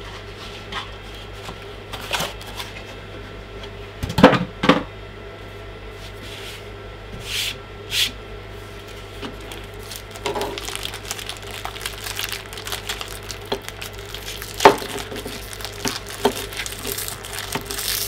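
Small objects being handled and set down on a hard tabletop: two sharp knocks about four seconds in and a few lighter clicks, then from about ten seconds fine crackly rustling with small clicks as parts of a beard trimmer are picked up and fiddled with.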